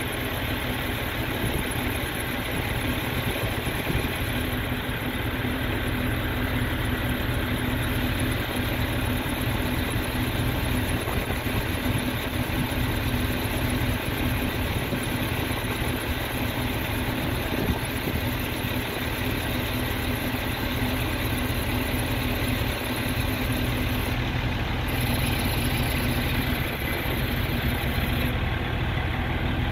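Crane truck's engine idling steadily while the UNIC truck-mounted crane's boom is worked.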